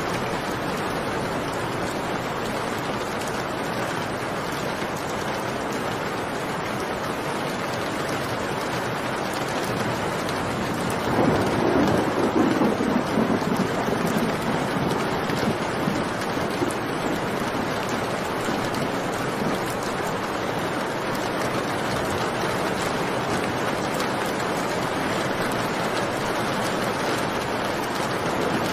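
Steady rain falling, with a roll of thunder starting about eleven seconds in and rumbling for several seconds before fading back into the rain.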